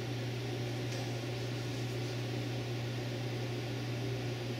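A steady low hum with an even hiss over it and nothing else: the room tone of a quiet indoor space.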